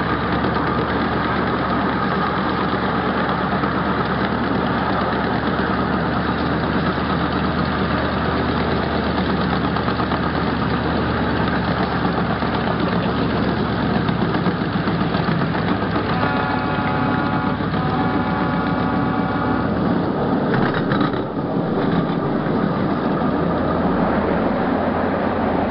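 A 12-inch gauge miniature train running steadily, heard from an open passenger car: continuous engine and wheel-on-rail noise. About two-thirds of the way in, a high pitched tone sounds twice in close succession.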